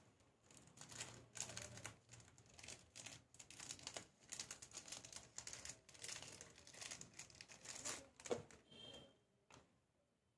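Crinkly material being handled: a busy run of quick, irregular crinkling and rustling from about a second in, with one sharper snap near the end before it stops.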